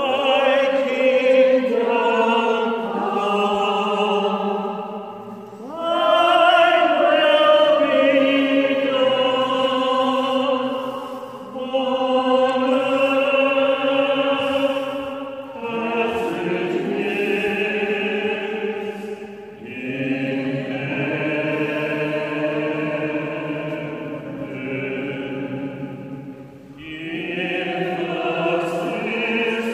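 A small group of men and women singing a hymn unaccompanied, in slow phrases of long held notes with short breaths between them.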